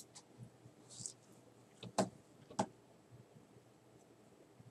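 Quiet room tone with two faint computer mouse clicks, about two seconds in and half a second apart.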